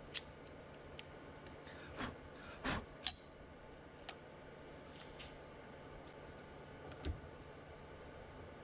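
Light clicks and taps of a metal clevis workpiece being handled and seated in a 3D-printed jig on a mini mill's vise. There are a handful of separate clicks over several seconds and a duller knock about seven seconds in.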